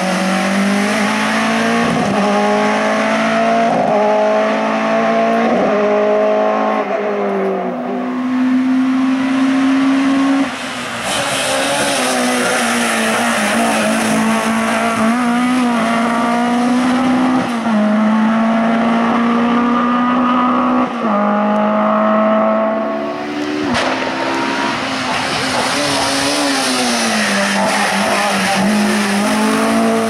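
Hill-climb race cars accelerating hard uphill one after another, engines revving up through the gears with a drop in pitch at each shift, and tyres squealing through the bends. There is a brief lull about ten seconds in.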